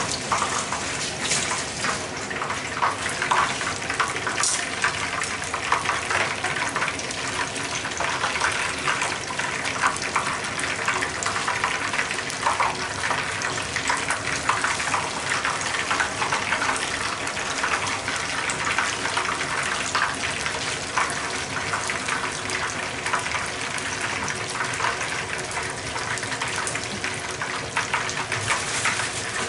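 Battered shrimp tempura deep-frying in hot oil in a frying pan: a steady crackling sizzle of bubbling oil, full of tiny pops.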